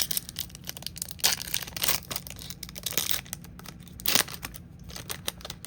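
Crinkling and tearing of a trading card pack's wrapper as it is opened by hand: a run of irregular crackles with a few sharper rips.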